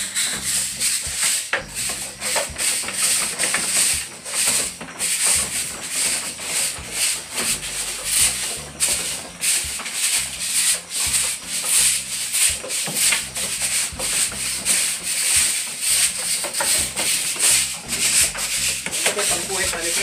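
Broom sweeping a slatted wooden floor in quick repeated strokes, a continuous scratchy rasp of bristles on boards.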